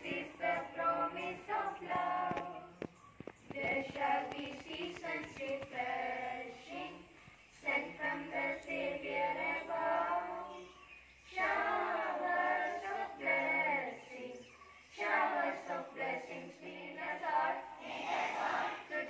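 A large group of children singing together in chorus, in phrases broken by short pauses.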